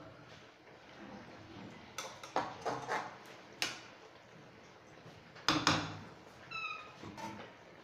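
Metal spoon stirring chicken adobo in a frying pan, knocking and scraping against the pan several times, loudest a little past halfway. Near the end comes a short, high-pitched call lasting under half a second.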